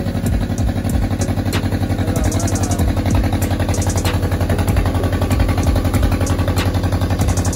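An engine running steadily with a fast, even low thumping beat and a few sharp clicks.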